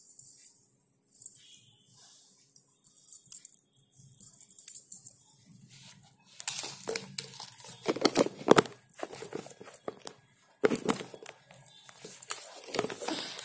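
Small bells of payal anklets jingling faintly in short repeated shakes for the first five seconds or so. After that come rustling and knocking of cloth and jewellery being handled close to the microphone, with a few louder thumps.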